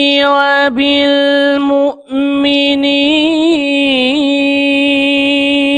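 A male qari's voice reciting the Quran in melodic tilawah style, drawing out long held notes with small wavering ornaments, with a brief breath pause about two seconds in.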